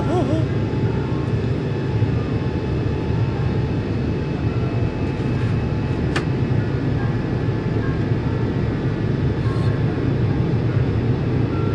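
Steady cabin noise of an Airbus A350-900 in flight, a low, even rush of engine and airflow noise, with a single faint click about six seconds in.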